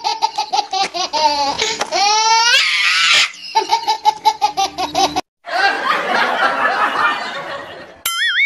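Laugh-track sound effect: a fast, high-pitched repeated laugh, broken about two seconds in by a rising whistle-like glide, then a noisier stretch of laughter, and a wobbling cartoon-style tone near the end.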